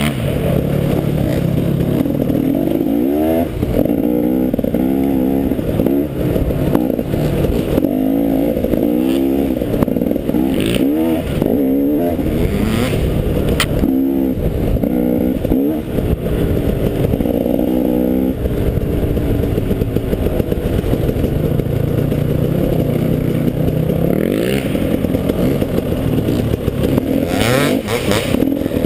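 Dirt bike engine ridden off-road, its pitch rising and falling over and over with the throttle and running steadier for a few seconds about two-thirds of the way through. Scattered knocks and rattles are heard over it.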